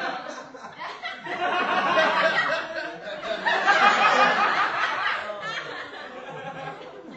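People laughing, a dense continuous stretch of overlapping laughter that is loudest a few seconds in and fades toward the end.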